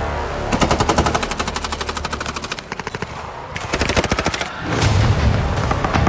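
Fully automatic gunfire: several long, fast strings of shots one after another, each lasting a second or two.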